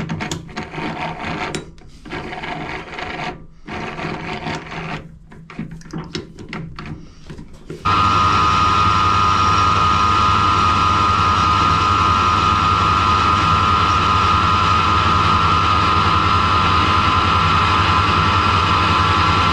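Metal clicks and scrapes as the Harrison lathe's three-jaw chuck is tightened with a chuck key. About eight seconds in, the lathe starts suddenly and runs steadily with a high whine over a low hum.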